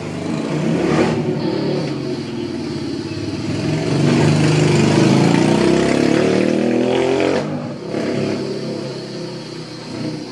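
A motor vehicle's engine running close by, its pitch drifting up and down as it swells to its loudest about four to seven seconds in, then drops away suddenly near the eight-second mark.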